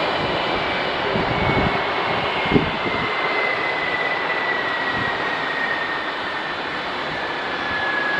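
Boeing 737-400 freighter's CFM56-3 turbofan engines running at low power as it taxis after landing: a steady jet rush with a whine that falls slowly in pitch. A brief thump about two and a half seconds in.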